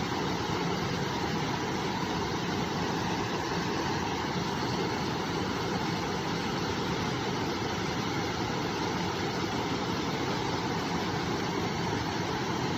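River water rushing steadily over rocks, an unbroken even rush.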